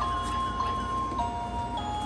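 Background music: a slow melody of clear held notes, mostly stepping down in pitch.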